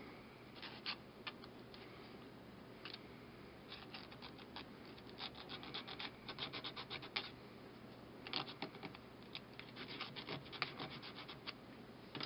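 Fine-grit sandpaper rubbed over a wooden tongue depressor in runs of quick, short scraping strokes with brief pauses between.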